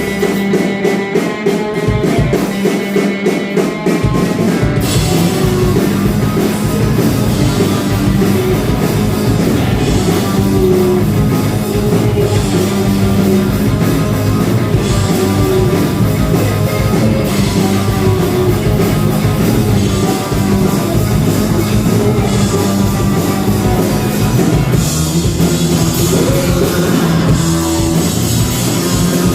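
Rock band playing loud during a sound check: a guitar and bass riff alone for the first few seconds, then the drum kit with cymbals comes in about five seconds in, and the full band plays on steadily.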